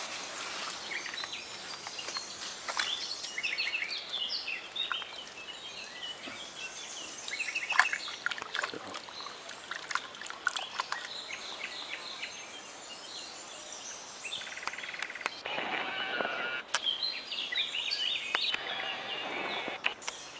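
Birds chirping and singing in many short calls, with two brief spells of rustling noise late on.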